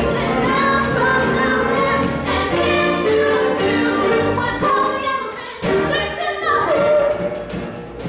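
A stage-musical cast singing together over musical accompaniment with a steady beat. The music breaks off briefly about five and a half seconds in, then comes back in at once.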